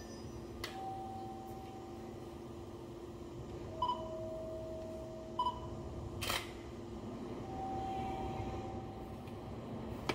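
JR 205 series electric commuter train standing at a platform with a steady electrical hum. A few short electronic beeps and held tones come over it, and there is a sharp click about six seconds in.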